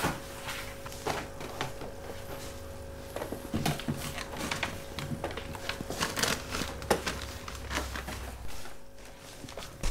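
Scattered knocks, clicks and rustling of things being handled and moved about, thicker from about three seconds in, over a faint steady hum.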